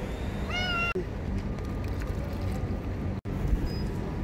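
A cat meows once, about half a second in, with a call that rises and then holds. A steady low rumble of street background runs under it.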